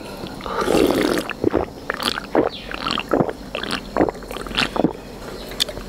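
Drinking and eating sounds: gulps from a drink can and wet mouth sounds, with scattered short clicks.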